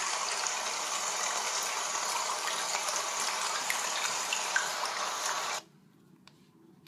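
Recorded water-and-rain white-noise track playing from a tablet's sleep-sounds app as a steady hiss. It cuts off suddenly about five and a half seconds in.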